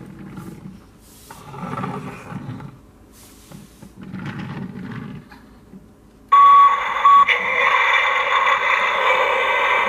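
A Tonka toy garbage truck's electronic sound effect, set off by a press on the truck: a short beep about six seconds in, then a loud, steady electronic noise that runs on. Before it, two quieter rumbles of toy wheels rolling across a wood floor.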